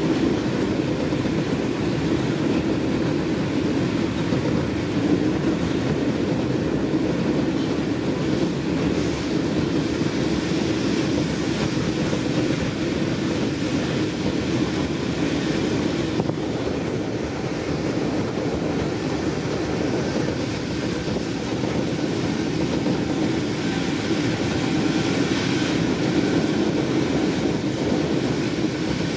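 Steady running noise of an n-Wagen passenger coach rolling at speed: an even rumble of wheels on the rails.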